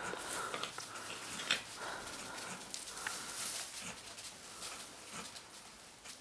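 Goats making a few soft, short calls just after a doe has given birth, with rustling and small clicks between them.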